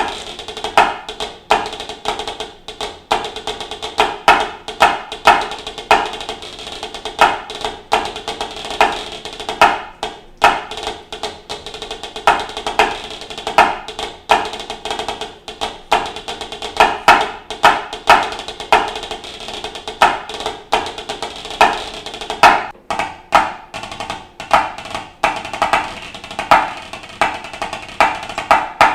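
Drumsticks played on a white laminate practice pad: quick runs of soft taps broken by louder accented strokes, each stroke a dry, sharp click with a slight pitched ring.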